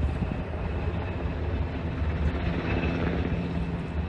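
Steady low rumble with a haze of noise from an aircraft engine.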